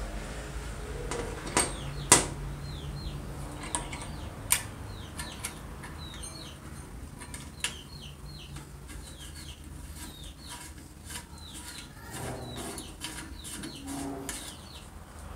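Small birds chirping over and over in short, quickly falling chirps. A few sharp clicks and taps of brass stove parts being handled, the loudest about two seconds in.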